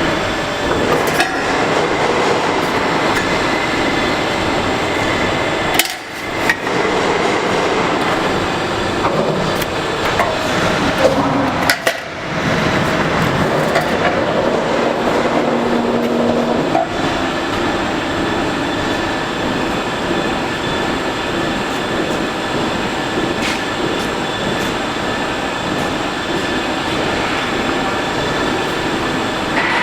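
Hydraulic CNC press brake running during sheet-metal bending, a steady loud mechanical noise with occasional sharp knocks and clanks. It drops away briefly twice, about six and twelve seconds in.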